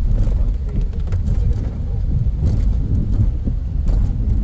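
Floodwater rushing past, a loud, steady low rumble with a few short splashes or knocks.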